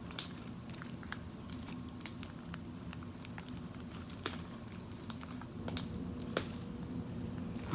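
Slime with shaving cream mixed in being kneaded and squished by hand, giving faint, scattered wet clicks and crackles over a steady low background hum.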